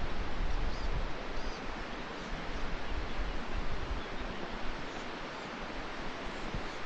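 Outdoor mountain ambience: a steady rushing noise of wind and moving air, with wind buffeting the microphone in roughly the first second.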